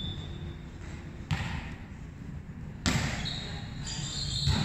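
Volleyball being struck during a rally: three sharp thuds about a second and a half apart, each ringing briefly in a large echoing hall.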